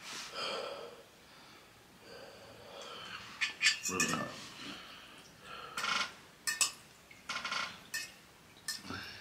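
Metal fork clinking and scraping in a bowl of noodles, several sharp clinks spread across a few seconds as the noodles are gathered up.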